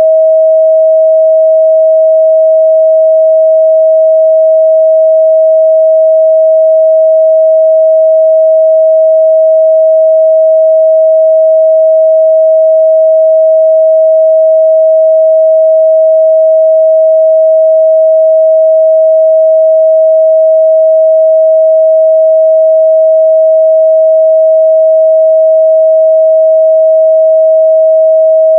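A loud, steady 638 Hz sine-wave test tone: one pure midrange pitch held without change, used to check a speaker's or headphone's response.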